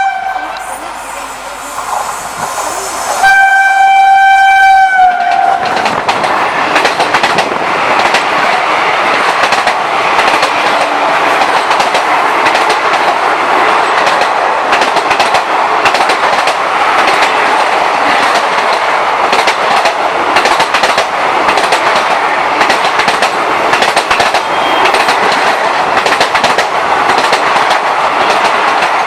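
WAP-4 electric locomotive horn: a blast cuts off at the start, and a second two-second blast about three seconds in dips in pitch as it ends. The express then runs past at speed, its coaches' wheels clattering steadily over the rail joints.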